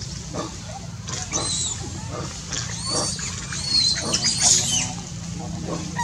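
Long-tailed macaques squealing, a run of short high calls that rise and fall, loudest around the middle.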